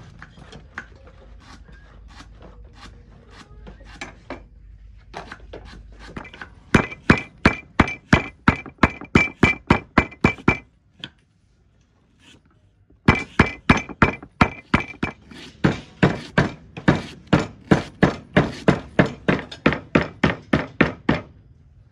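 A heavy cleaver chopping snake meat on a wooden chopping block. The strokes are quick and even, about four a second, each a thunk with a short metallic ring. The chopping starts light and uneven, then turns hard and steady, pauses for about two seconds midway, and resumes.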